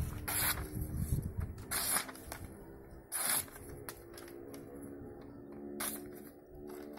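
A handmade Zulfiqar sword blade slicing through sheets of paper held in the air, as a test of the edge's sharpness: four short, crisp swishes, each one to two and a half seconds apart.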